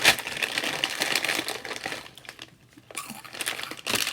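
Snack bag of Hot Cheetos crinkling as it is handled, in crackly bursts with a brief pause about two and a half seconds in.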